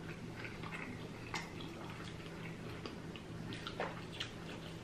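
Close-miked eating sounds: scattered wet smacks and small crunchy clicks of chewing Flamin' Hot Cheetos-crusted rotisserie chicken, over a low steady hum.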